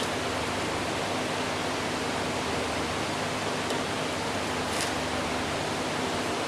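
Hot forge-welded cable-damascus cleaver blade being quenched in oil in an ammo can: a steady hissing sizzle as the steel cools in the oil.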